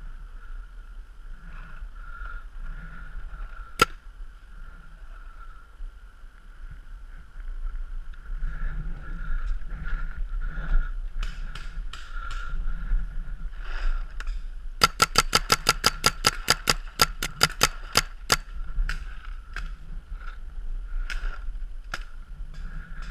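Paintball markers firing: a single shot, then scattered shots, then a rapid string of about twenty shots at five or six a second, two thirds of the way through. A steady faint high tone runs underneath.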